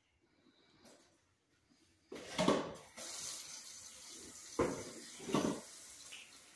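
Kitchen tap turned on about two seconds in, water running into a metal sink while hands are washed after handling raw chicken, with three clunks against the sink.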